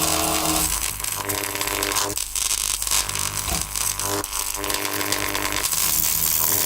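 Electricity sound effects from the Polarity library, an electric crackle and buzzing hum. It comes in repeated surges of a second or two.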